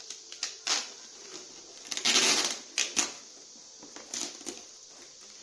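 Clear packing tape ripped off its roll in a half-second rasp about two seconds in, among short crackles and taps of cardboard being handled and taped down.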